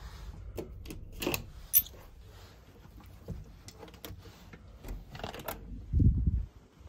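Clicks and jangling of a hotel room key being pulled from the wall's power-saving key slot, the sharpest click a little under two seconds in. Then a door latch clicks and a low thud sounds as the room door is opened, about six seconds in.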